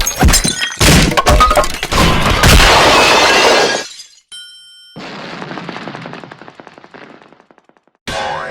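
Cartoon crash sound effect: a loud run of crashing, breaking impacts with glassy clinks that fades after about four seconds. A brief high ringing tone follows, then a quieter rattling clatter that slowly dies away.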